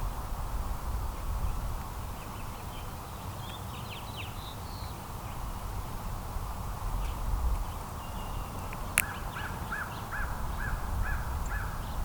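Backyard wildlife calling over a low outdoor rumble: a few faint high chirps, then a sharp click followed by a run of about seven short, evenly spaced calls, roughly three a second, near the end.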